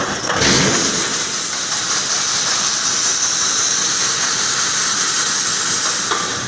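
A loud, steady hiss of escaping air from the reinforcing mesh welding machine's pneumatics. It starts suddenly about half a second in.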